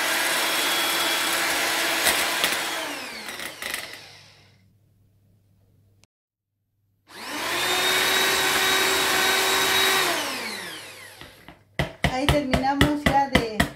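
Handheld electric mixer with twin beaters whipping cream and sweetened condensed milk. It runs steadily and winds down with a falling pitch when switched off, then starts again for about three seconds and winds down once more. Near the end there is a fast run of sharp knocks.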